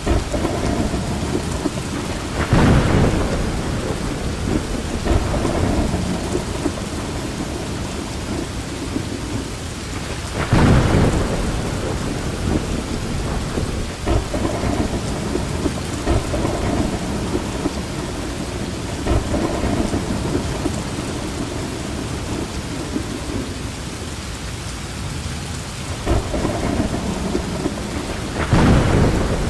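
Heavy rain pouring steadily, with three brief louder surges.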